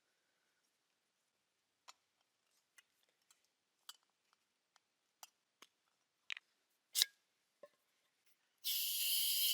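Scattered small clicks and knocks of camping gear being handled, then a loud hiss lasting about a second near the end.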